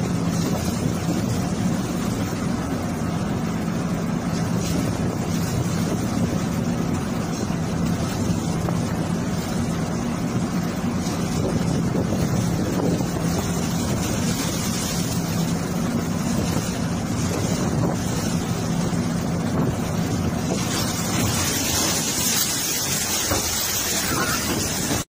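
A ship's engine running steadily with a low hum, under a loud rush of wind and seawater washing across the deck. The hiss grows brighter a few seconds before the end.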